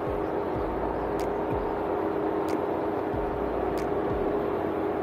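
Ford Bronco driving slowly along an off-road trail: a steady engine and road drone, with a faint light tick about every second and a bit.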